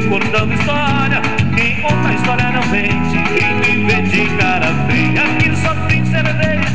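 Sertanejo music with a steady beat, played live on an electronic keyboard.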